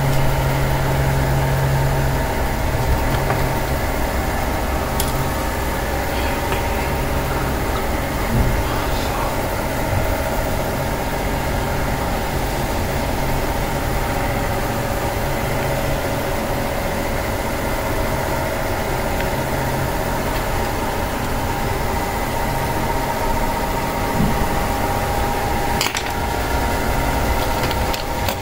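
A steady machine hum with several steady tones, as from a running motor, with a few short clicks, one about five seconds in and one near the end.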